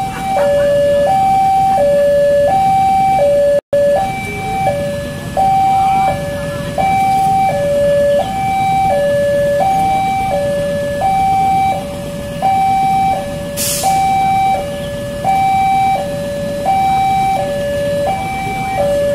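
Railway level-crossing warning alarm sounding through its loudspeaker: an electronic two-tone signal that alternates steadily between a higher and a lower note, each held about two-thirds of a second. It signals that the barrier is down and a train is approaching.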